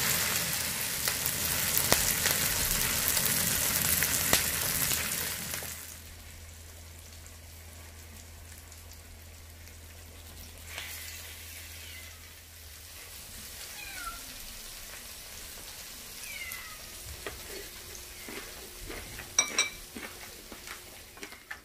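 Pork belly sizzling on a coated mini camping griddle over a portable gas burner, loud for about six seconds and then dropping to a soft sizzle. In the second half a cat gives a few short meows that fall in pitch, and a couple of sharp clicks come near the end.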